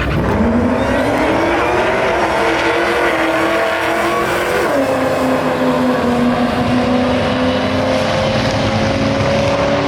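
Drag-race cars accelerating hard down the strip at full throttle. The engine pitch climbs, drops sharply at an upshift about five seconds in, then climbs slowly again.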